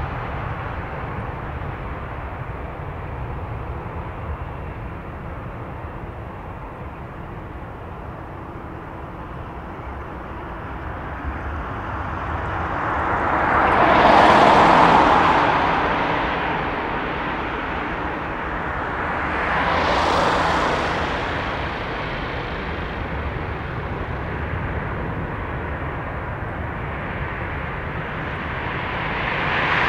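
Jet engines of a taxiing Thai Airways Boeing 787-8 Dreamliner: a steady rushing whine that swells louder three times, about halfway through, again some six seconds later, and at the very end.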